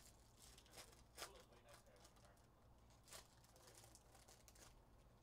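Faint crinkling and tearing of a foil trading-card pack being opened by hand, with scattered crackles, the sharpest about a second in and again about three seconds in.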